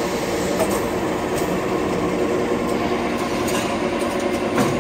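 Automatic napkin paper folding machine and its transfer conveyor running steadily: a constant mechanical hum with light clicking, and one sharper knock near the end.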